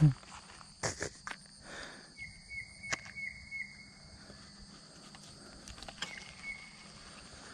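Steady high-pitched chirring of insects, with a short run of repeated chirps about two seconds in and again around six seconds. A few sharp clicks in the first three seconds come from hands handling a fishing lure and baitcasting reel.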